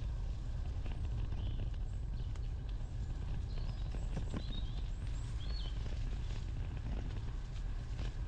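Wind buffeting the microphone as a steady low rumble, with irregular light clicks and rattles and a few short bird chirps about four to six seconds in.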